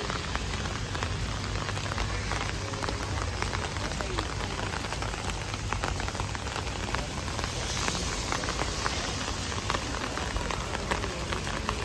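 Steady rain falling, with many close drops ticking irregularly on an umbrella held overhead.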